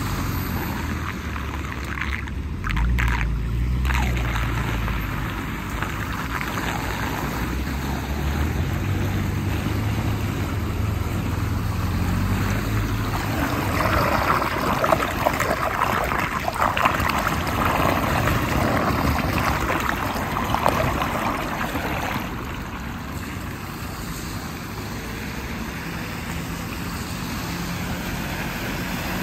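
Flood water swirling and gurgling down a street storm drain in a whirlpool, under a low rumble in the first half. About halfway through, a louder splashing runs for some eight seconds as a hand reaches into the vortex to clear the clogged drain, then the steady swirling of the draining water settles back.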